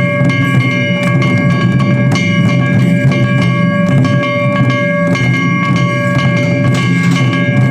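Lion dance festival music: Japanese drums beaten in a fast, steady rhythm, with a single high note held steadily over them.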